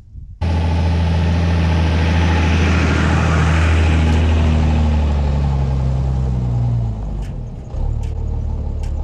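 A truck's Cummins diesel engine running loudly. It cuts in suddenly, holds a steady pitch, dips in speed at about seven seconds and picks back up about a second later.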